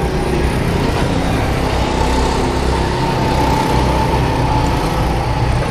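Go-kart engine running with a steady, continuous drone.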